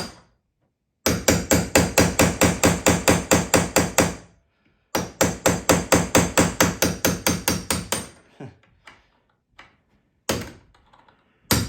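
Hammer striking metal in two fast runs of about six blows a second, each ringing slightly, then two single blows near the end, as a broken-off screw is knocked at to work it loose.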